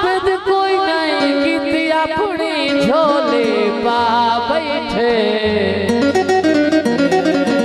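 Live Punjabi folk band playing an instrumental passage between sung lines: a wavering, heavily ornamented melody over steady low notes.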